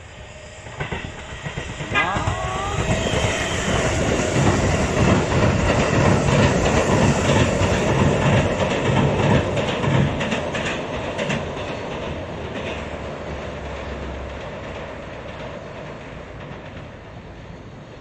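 Sanyo Electric Railway limited express train crossing a steel girder railway bridge, its wheels clattering over the rail joints with a rhythmic clickety-clack. It builds from about a second in, is loudest in the middle, then fades as the train draws away across the bridge.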